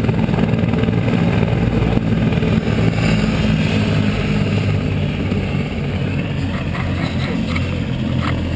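Medical helicopter running on the ground, its rotor and turbine a steady drone. A few short clicks come near the end.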